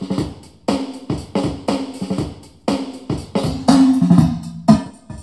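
Drum-heavy music with bass and snare playing from a small portable speaker as a test signal. About four seconds in, an empty galvanized steel bucket is lowered over the speaker, and after a loud hit the music continues at a lower level.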